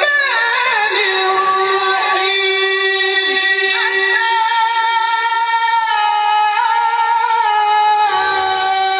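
A male Quran reciter (qari) chanting in the melodic tilawat style through a microphone. A brief wavering, falling run at the start leads into one long, steady held note.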